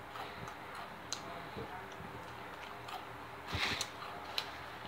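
Chewing crunchy Doritos tortilla chips: scattered small crisp clicks, with one louder crunch about three and a half seconds in.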